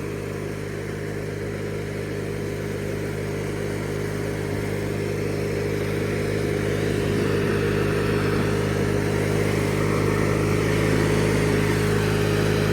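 Riding lawnmower engine of a 1997 MTD Yard Machines mower running steadily at an even pitch, growing gradually louder.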